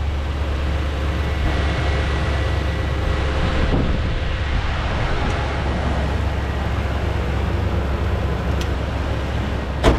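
Toyota Tundra's 4.6-litre V8 idling steadily with an even low hum, running after the blown ETCS fuse was replaced. A sharp knock near the end.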